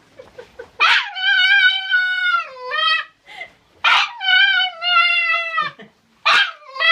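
Dog howling in three long, high, wavering calls, each starting abruptly, with short gaps between them.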